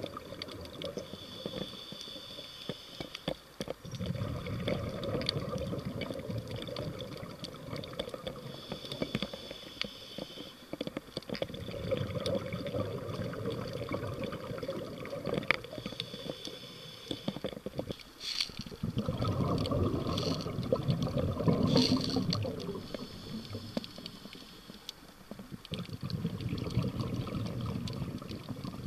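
A diver breathing underwater through a scuba regulator: short hissing inhalations alternating with longer bubbling exhalations, about four breaths. A few sharp clicks come in the middle.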